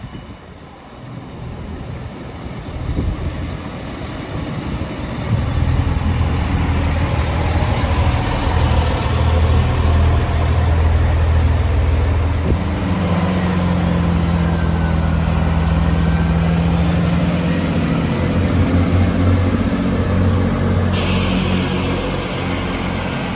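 Class 158 diesel multiple unit's underfloor diesel engines running and building up as the train pulls away. The engine note steps up about halfway through, and a hiss of air comes in near the end.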